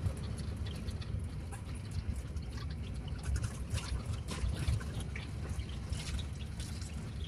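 Water trickling and lapping, with many small splashy ticks over a low, uneven rumble.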